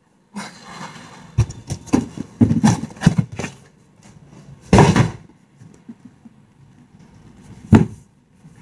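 A heavy cardboard gift box being worked out of a cardboard shipping carton and handled: scraping and rustling of cardboard with several thumps, the loudest about five seconds in, and a sharp knock near the end.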